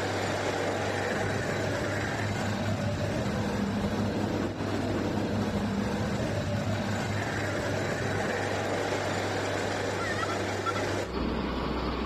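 Kartar 4000 combine harvester's diesel engine running steadily as the machine drives past. About a second before the end the sound changes abruptly to a lower, duller engine hum.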